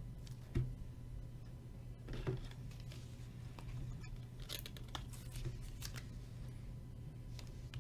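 Trading cards being handled: faint, scattered rustling and small clicks of card stock and packaging, over a steady low hum.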